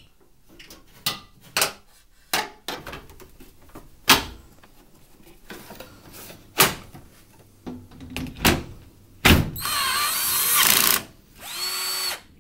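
Washing machine panels and the detergent drawer being fitted back, giving a string of sharp knocks and clicks. Near the end a cordless drill-driver runs twice, driving the panel screws back in.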